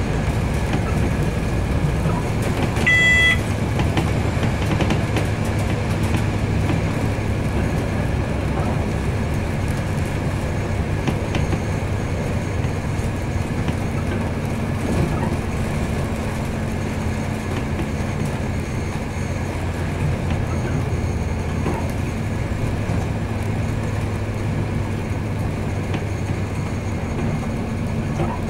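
Steady running noise of a train heard from the driver's cab: a low engine hum under the rolling of the wheels on the rails. A short, high electronic beep sounds once about three seconds in.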